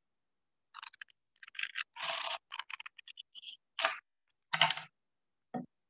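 A cardstock book cover being handled and worked by hand: an irregular run of short crisp rustles, scrapes and clicks, with a soft low knock near the end.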